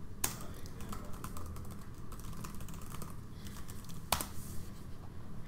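Typing on a computer keyboard: a quick run of keystrokes, with one louder key press about four seconds in.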